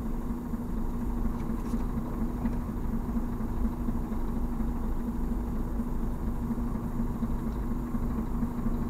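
Scania truck's diesel engine running steadily with an even low drone.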